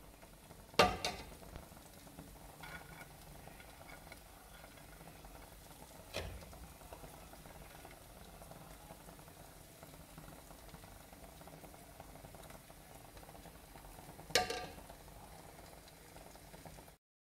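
Rice being dished onto a ceramic plate, with three sharp clinks of the serving utensil against the plate: a loud one about a second in, a fainter one about six seconds in and another near the end. Between the clinks there is only a low steady hiss.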